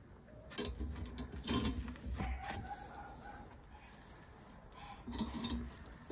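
Steel chain links clinking and rattling against the iron hooks of a tandoor as a chicken on a chain is hung in place, in two bouts: about half a second in, and again near the end.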